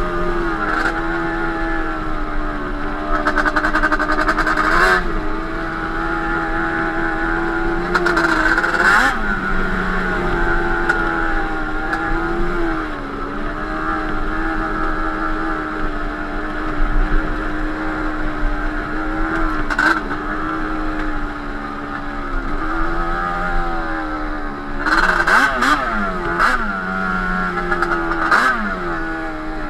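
Yamaha Banshee 350's twin-cylinder two-stroke engine, breathing through Toomey T5 expansion-chamber pipes, running under way. Its pitch holds and then rises and falls with the throttle, with several short bursts of higher revs.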